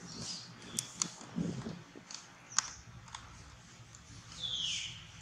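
A baby macaque's high-pitched squeaks, with one longer squeal falling in pitch near the end, among a few sharp clicks.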